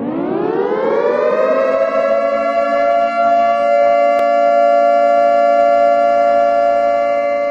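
Air-raid siren sound effect: it winds up, rising in pitch over the first second or so, then holds one steady tone, sagging slightly near the end.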